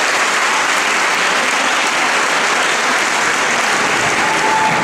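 Audience applauding steadily after a choir performance ends.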